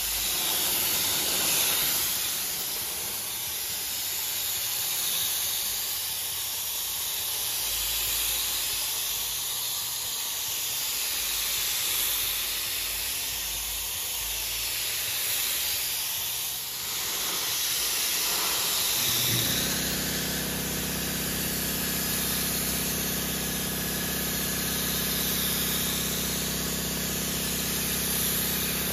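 3M Accuspray gravity-feed spray gun spraying gelcoat with compressed air at about 35 psi: a steady hiss that swells and fades with each pass along the hull. About two-thirds of the way through, a steady low machine hum starts up beneath the hiss.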